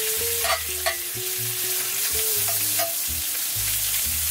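Spam strips sizzling in butter in a cast-iron skillet while a fork stirs them, with a few short clicks of the fork against the pan.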